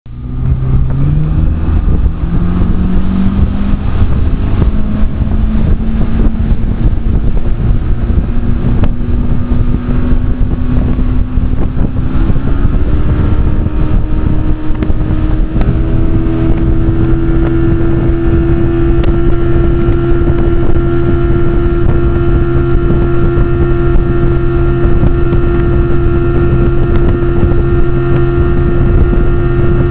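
Yamaha 115 hp two-stroke outboard running loud, pushing a boat along. Its pitch climbs over the first few seconds, rises again about twelve seconds in, then holds steady. Wind buffets the microphone.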